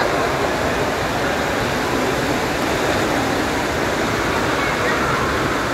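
Steady rush of water pouring out of a water slide's exit into a shallow splash pool.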